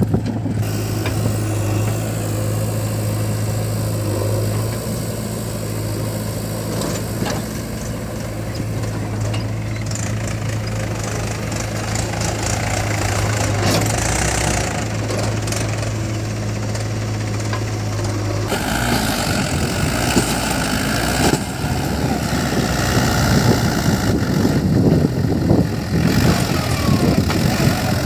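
Diesel engines of a backhoe loader and a farm tractor running at a working site. A steady low engine drone changes abruptly about two-thirds of the way through to a rougher, busier engine sound.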